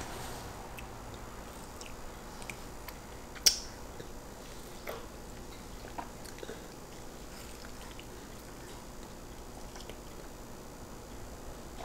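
Toddlers chewing juicy melon and egg: faint wet mouth sounds and small scattered clicks, with one sharper tap about three and a half seconds in.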